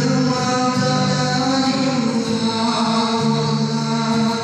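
A man singing into a microphone with acoustic guitar accompaniment, amplified over a PA; the voice holds long sustained notes.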